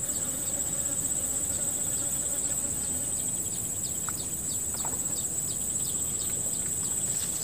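Insects trilling in a steady, unbroken high-pitched drone, with faint short ticks repeating a few times a second through the middle.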